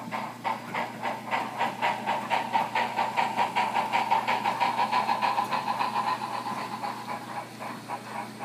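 Model Milwaukee Road 2-6-2 steam locomotive's DCC sound decoder playing a steady rhythm of steam exhaust chuffs, about five a second, over a continuous hiss. The sound swells a couple of seconds in and eases near the end.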